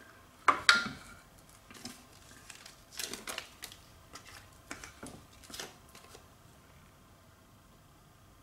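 Guitar effects pedals and Velcro tape being handled and a pedal set down on the pedalboard: two sharp clicks about half a second in, then scattered light knocks and taps for the next few seconds.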